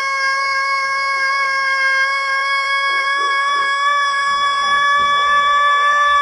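Pelung rooster crowing one very long, drawn-out note, held steady and rising slightly in pitch toward the end; a strange but long crow.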